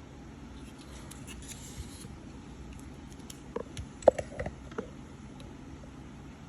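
A few light clicks and taps of small hand tools working on a circuit board as diodes are desoldered, the sharpest about four seconds in, over a faint steady hiss.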